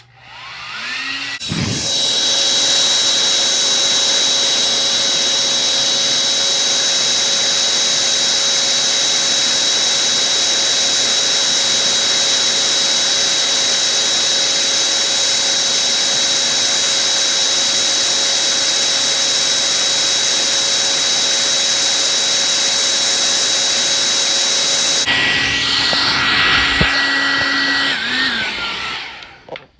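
Handheld hair dryer switched on, spinning up with a rising whine, then blowing steadily hot air onto the bridge of plastic eyeglass frames to soften them for bending. About 25 seconds in its tone drops to a lower pitch, and near the end it winds down and stops.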